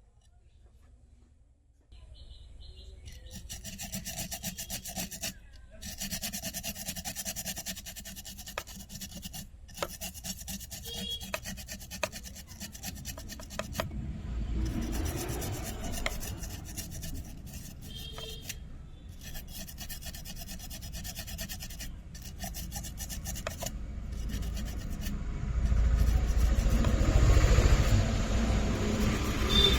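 Rapid scraping and rubbing of a small tool worked back and forth on a circuit board, starting about two seconds in and broken by short pauses, with a low rumble rising in the last few seconds.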